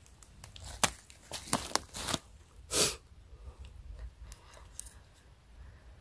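A bolete mushroom being cut and pulled from moss and leaf litter with a pocket knife: several sharp snaps and crunches, the loudest a short tearing rustle about three seconds in. Faint scraping follows as the knife cleans dirt off the stem base.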